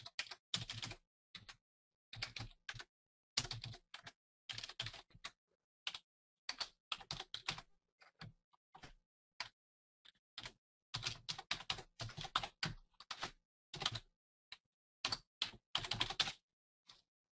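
Typing on a computer keyboard: faint, irregular runs of keystrokes with short pauses between them.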